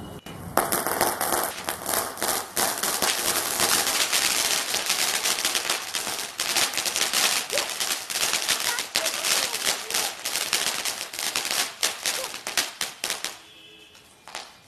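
Sri Krishna 'Golden Drops' fountain firework spraying its shower of sparks: a steady hiss packed with rapid crackling pops. It starts suddenly about half a second in and dies away near the end.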